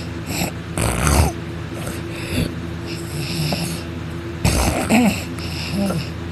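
A person snoring hard in deep sleep, two loud snores about four seconds apart with quieter breathing between, over a steady background hum.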